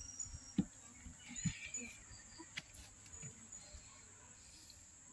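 Steady high-pitched trill of insects such as crickets, with a few soft knocks in the first two seconds.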